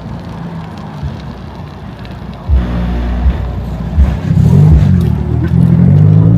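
A car engine running close by and accelerating, getting louder about halfway through, with its pitch rising and falling.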